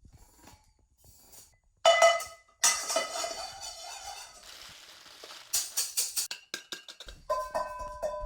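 Household kitchenware played as percussion: a metal saucepan and other items struck in turn. A loud ringing strike comes about two seconds in, then a noisier rattle fades away, then a run of quick clattering knocks, and more short metallic rings near the end.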